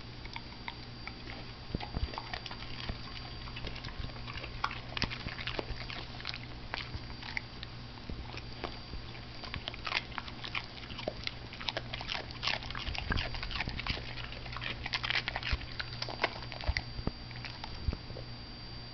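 A dog chewing broccoli, with irregular crisp crunches that start about two seconds in, come thickest in the second half and stop shortly before the end.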